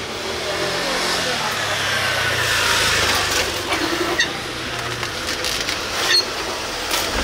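Street noise: a vehicle passes close by, its sound swelling to a peak about three seconds in and then fading, with people's voices in the background and a few sharp clicks near the end.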